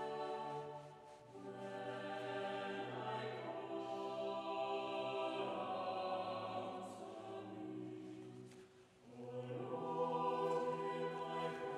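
Choral music: a choir singing slow, sustained chords, with short breaks between phrases about a second in and near nine seconds.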